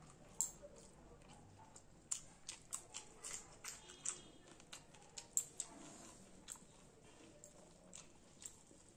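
Eating sounds from a close microphone: wet mouth clicks and smacks of chewing rice and curry eaten by hand. They come in quick, irregular clusters, thickest through the middle and thinning out toward the end.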